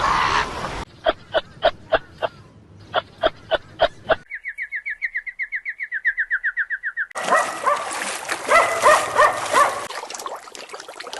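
A series of different animal calls in turn. First comes a run of short, evenly spaced pitched calls, about three a second. Then a fast, high trill lasts about three seconds, and near the end come more calls over a noisy background.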